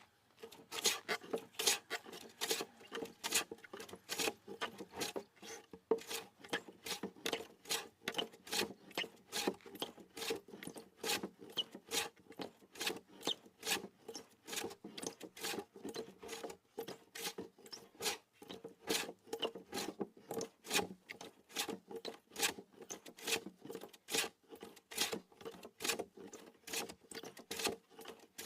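Sandpaper rubbed by hand over a wooden tabletop in quick back-and-forth strokes, about two or three a second, starting suddenly and keeping a steady rhythm.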